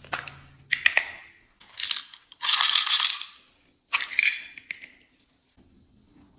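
Glossy slime being squished and mixed by hand: five bursts of crackling and clicking pops, the middle one the longest and loudest, dying down near the end.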